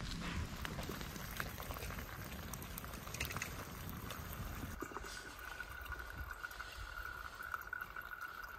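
Water coming to the boil in a small metal kettle on a grate over a wood campfire, with the fire crackling and snapping. About five seconds in, the sound changes to a quieter background with a steady high-pitched tone.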